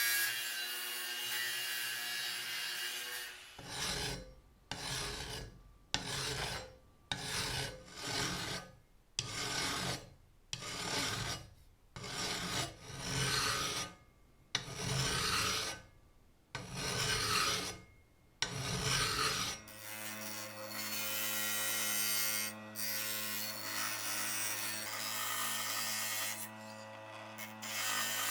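A small motor runs steadily, then, from about three seconds in, long even strokes of hand filing follow, roughly one a second, about sixteen in all. A little past two-thirds of the way through, a steady motor hum takes over again.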